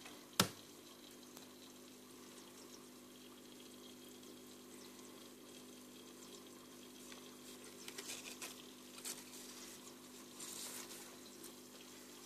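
Small vivarium waterfall trickling faintly over the steady low hum of its pump, with one sharp click about half a second in and some light rustling later on.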